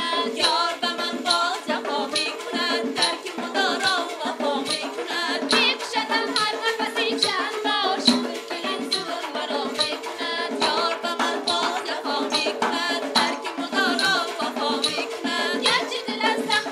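Tajik folk ensemble music: a steady, driving drum rhythm under a melody with heavy vibrato.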